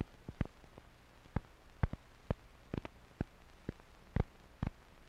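Irregular pops and clicks of an old film soundtrack, about a dozen sharp ticks spaced unevenly, over a faint steady low hum.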